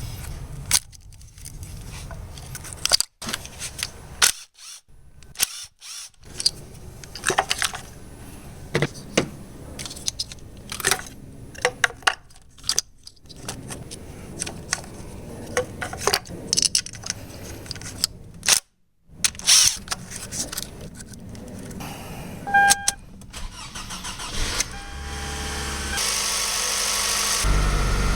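Repeated sharp metallic clinks and clicks of hand-tool work, broken by a few brief drops to silence. Near the end, a car engine starts and runs, growing louder.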